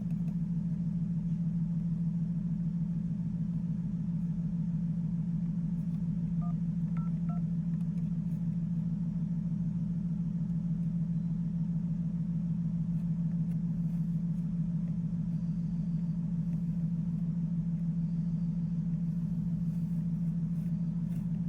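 Steady low mechanical hum that holds at one pitch and level throughout, with a few faint ticks about six to seven seconds in.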